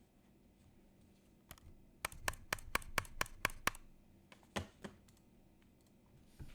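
Custom E8.5 mechanical keyboard with lubed vintage Cherry MX Black linear switches on a polycarbonate plate, being typed on. A quick run of about ten keystrokes comes about two seconds in, then two more keystrokes in the middle and a single one near the end.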